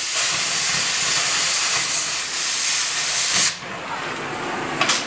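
Loud, steady hiss of a metal-cutting torch cutting through the truck's old frame. It stops abruptly about three and a half seconds in, leaving a quieter hiss, and a couple of sharp clicks follow near the end.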